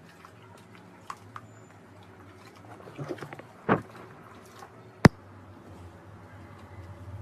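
Slime being pressed and squished, with scattered small clicks and crackles, a short cluster of crackling around three and a half seconds in, and one sharp pop about five seconds in.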